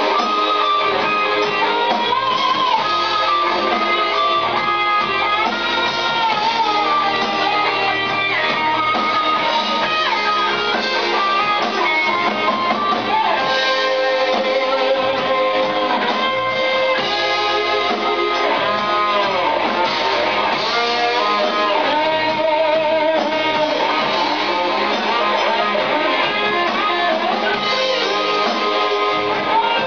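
Live band playing, led by an improvised electric guitar solo over drums and backing guitar. The lead line bends notes up and down and holds some with a wide vibrato.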